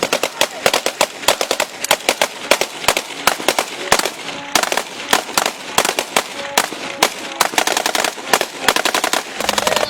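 Rapid gunfire: many sharp cracks in quick, irregular succession, several a second, running on as sustained bursts.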